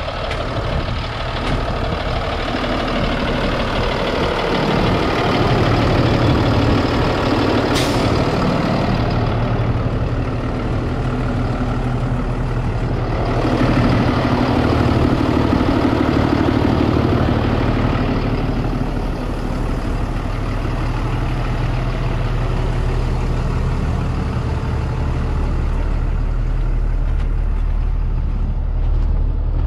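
Diesel engine of a 2017 International 4300 box truck idling steadily, with one sharp click about eight seconds in.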